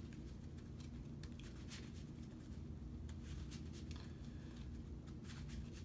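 Quiet room tone: a steady low hum with a few faint light ticks and rustles.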